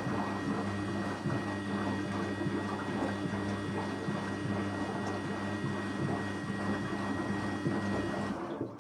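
Washing machine running: a steady motor hum with a thin high whine and irregular rattling, cutting off abruptly near the end.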